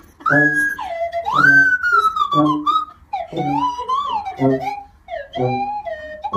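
Background music: a high, sliding, whistle-like lead melody over short low notes about once a second.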